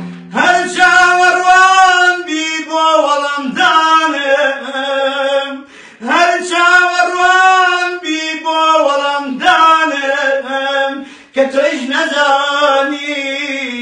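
A man singing unaccompanied in long, wavering held notes. The phrases last a few seconds each, with brief pauses between them.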